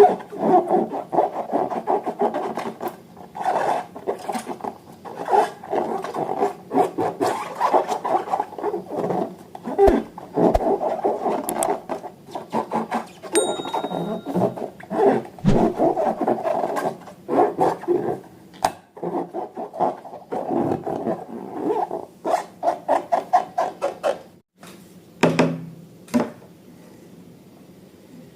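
Slime being kneaded and stretched by hand: a continuous run of small wet clicks and pops, with a quick train of clicks near the end before it tails off.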